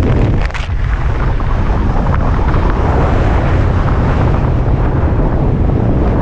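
Loud, steady wind rushing over the microphone of a pilot's camera in fast speed-wing flight, dipping briefly about half a second in.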